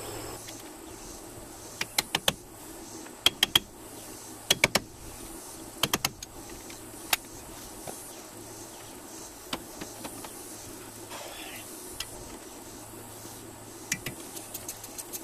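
Hand tools clicking and tapping on the front wheel hub of a 1992 Chevy Silverado as the hub is taken apart for a wheel bearing change: sharp clicks, mostly in clusters of two or three, every second or two.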